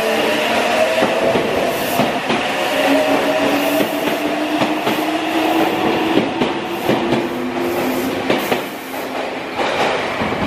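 Meitetsu 2000 series μSKY airport limited-express train pulling away and accelerating. Its traction motors give a whine that rises slowly in pitch, and the wheels click irregularly over rail joints.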